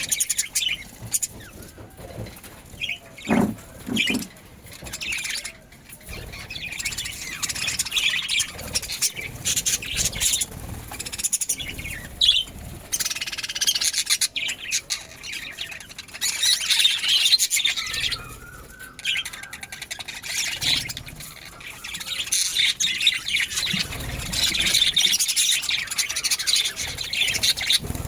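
Budgerigars chattering and chirping continuously, a busy high-pitched warble with louder flurries.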